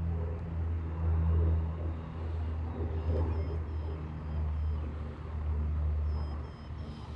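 A steady low rumble that swells and fades, with faint short high chirps repeating in the second half.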